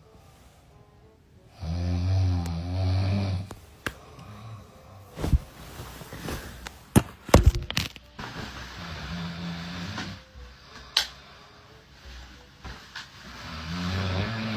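A person snoring: a long, low, rattling snore about two seconds in, a weaker snore later and another building near the end, with several sharp clicks or knocks in between.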